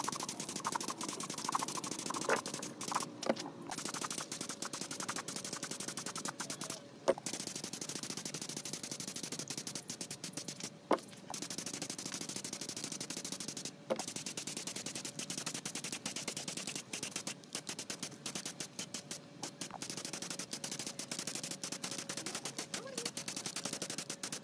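Gravity-feed air spray gun spraying paint: a steady rattling hiss of air and atomised paint, cut off briefly several times as the trigger is released and pulled again.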